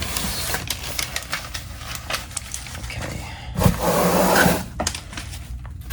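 Rustling and scraping of packaging, with scattered clicks and knocks, as a boxed plant is handled and unpacked.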